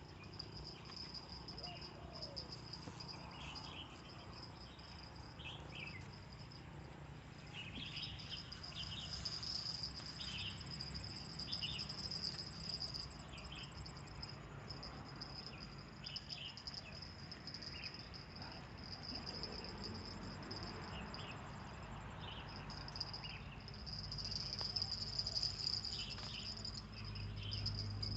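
Insects, crickets by their sound, keep up a steady high-pitched drone, with short chirps scattered through it and a low rumble underneath.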